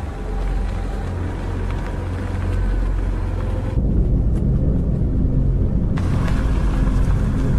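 A car driving at night, its engine and road noise making a steady low rumble that turns heavier and louder about four seconds in, when it is heard from inside the cabin.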